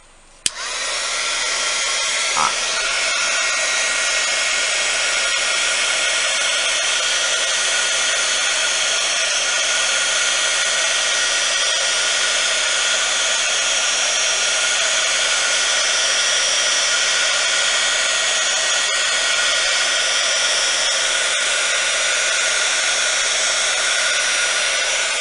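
A handheld hot-air blower running steadily at full speed, switched on about half a second in and blowing across wet epoxy resin to spread the white pigment into ocean-wave lacing. A small knock about two and a half seconds in.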